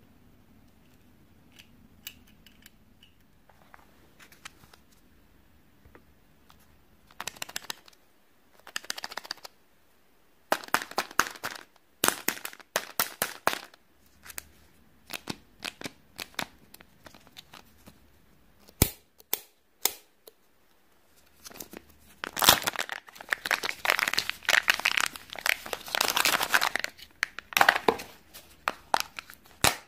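Crinkling and tearing of a Kinder Joy egg's plastic wrapper being handled and peeled open: a few faint clicks at first, then scattered crackly bursts, building to a dense, loud stretch of crinkling about three quarters of the way through.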